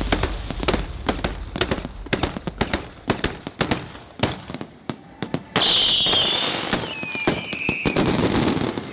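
Bottle rockets of the beehive fireworks going off in a rapid, uneven string of sharp cracks and pops. A little past halfway a shrill whistle sets in and slowly falls in pitch.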